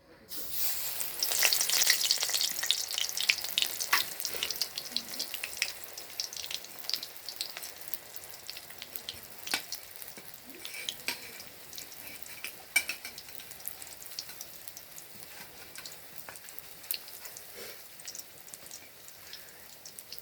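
Coriander-leaf gram-flour fritters dropped into hot oil in a kadai, sizzling with many sharp crackles and pops. The sizzle starts suddenly just after the start, is loudest for the first few seconds as the batter hits the oil, then settles to a quieter, steady frying sizzle.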